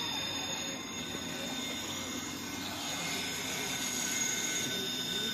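Electric RC rock crawler's motor and gears whining steadily as it crawls up rock.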